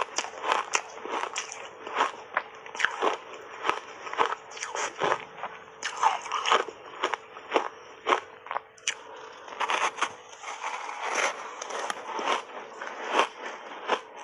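Refrozen block ice being bitten and chewed close to a clip-on microphone: a fast, irregular run of sharp crunches and crackles.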